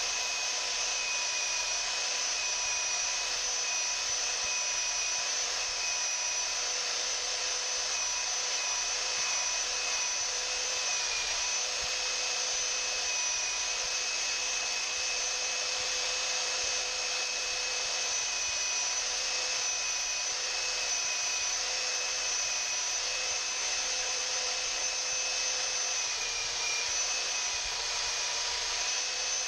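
Hand-held electric belt sander running steadily on wood, a continuous motor whine over a rushing sanding hiss. Its pitch dips briefly twice.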